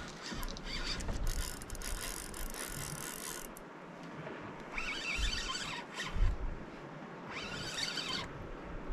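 A spinning reel's drag squealing in bursts as a hooked fish pulls line off: one long run of about three seconds, then two shorter runs of about a second each. There is a single low knock about six seconds in.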